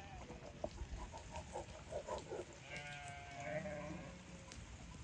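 Sheep bleating in a moving flock: a quavering bleat in the first half, then one longer bleat about three seconds in.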